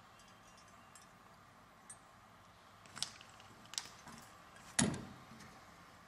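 A few light clicks and clinks of wire and small hand tools being handled, with one louder knock about five seconds in.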